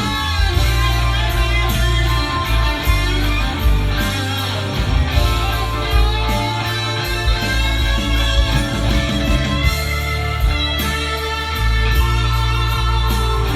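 Rock music with guitar and steady bass notes, played through a Yamaha YSP-2700 sound bar and picked up by binaural in-ear microphones.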